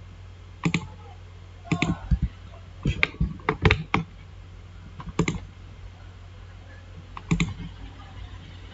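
Clicks and keystrokes from a computer mouse and keyboard, coming in small irregular groups of two to four, over a low steady hum.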